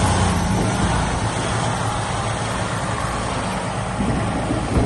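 Loaded diesel semi truck with a dump trailer rolling slowly past to proof-roll a dirt pad. The engine hums steadily, loudest at first and fading as the cab moves by, with a brief thump near the end.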